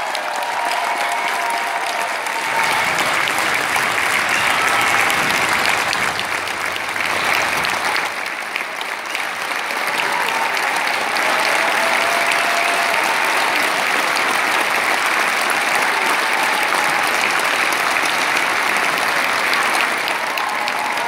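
Large theatre audience applauding steadily, a dense unbroken clapping.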